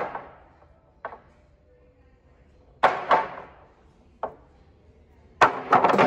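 Wooden lumber boards banging down onto a concrete floor: a light knock, a loud echoing bang about three seconds in, another light knock, then a clatter of several bangs in quick succession near the end.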